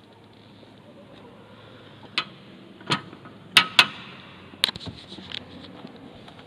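A hand handling a forged steel bell frame: about five sharp knocks and clicks over two and a half seconds, the two loudest close together in the middle with a brief ring after them.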